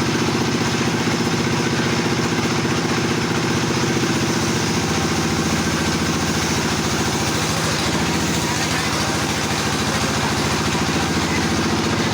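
Stihl 070 two-stroke chainsaw running at a steady speed, its note sagging slightly for a few seconds midway.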